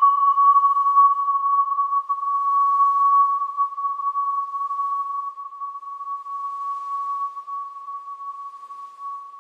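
A single wind chime tone ringing out after a strike, one steady pitch slowly fading away; a higher overtone dies out about two seconds in.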